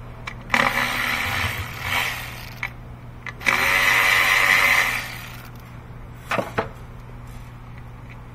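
Cordless electric ratchet with a 10 mm socket whirring in two bursts of about a second and a half each, running a bolt out, followed by a couple of light knocks.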